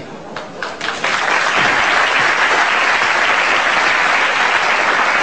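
Audience applauding: a few scattered claps in the first second swell into steady, dense applause.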